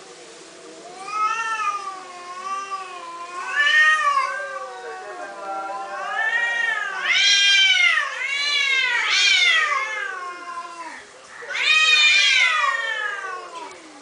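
Two domestic cats meowing at each other face to face, a series of long, wavering calls that rise and fall in pitch. The calls are loudest in the middle and again near the end.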